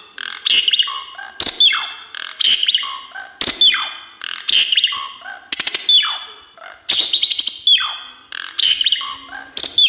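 Asian pied starling (jalak suren) singing, repeating a phrase about once a second: a burst of sharp clicks followed by a loud whistle that slides down in pitch.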